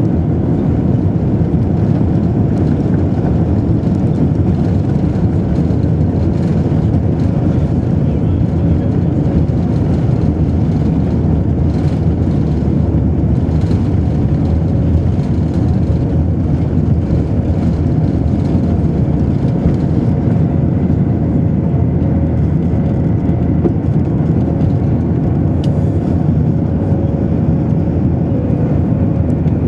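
Airbus A321 takeoff heard from inside the cabin over the wing: loud, steady engine noise at takeoff power with runway rumble during the takeoff roll, the jet lifting off and climbing in the second half. A steady humming note grows stronger during the later part.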